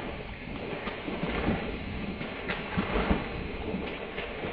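Dog running through shallow water, its feet splashing irregularly over a continuous rumbling wash of noise.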